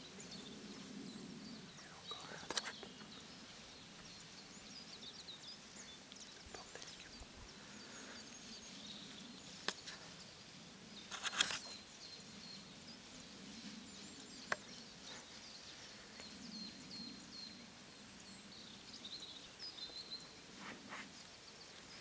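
Faint birdsong: scattered short high chirps throughout, with a few brief clicks and rustles, the loudest a short rustling burst about halfway through.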